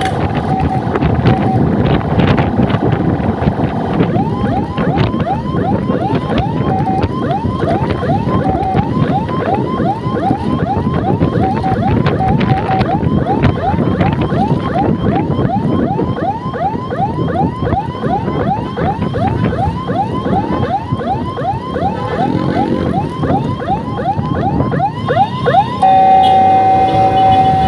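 Electronic siren on an ambulance-escort motorbike yelping in fast, repeating rising sweeps, a few per second, over engine and traffic noise. Near the end it changes to a loud steady tone.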